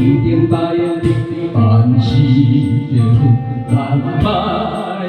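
Karaoke backing music playing an instrumental passage of a Taiwanese enka-style song, with sustained notes over a steady beat.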